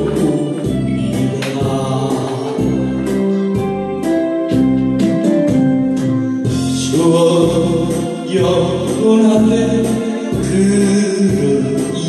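Instrumental interlude of a trot song's backing track, with a steady bass beat under the melody, which becomes fuller about halfway through.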